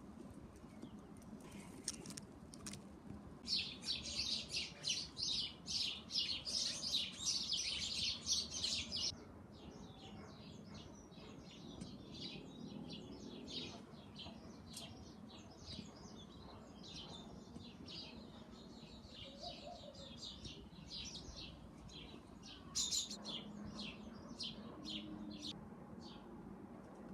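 Small birds chirping: a dense, fast run of high chirps from about 3 to 9 seconds in, then sparser repeated chirps, with a short louder flurry near the 23-second mark.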